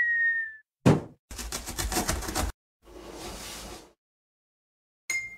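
Cartoon sound effects from an animated intro: a short whistle-like tone falling slightly in pitch, a thump, about a second of fast rattling, a soft whoosh, then a bright ringing ding near the end.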